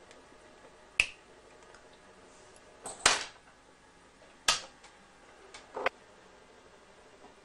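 Four sharp clicks and snaps from fingers working a small metal wire terminal on a speaker lead. The third, about three seconds in, is slightly longer and the loudest.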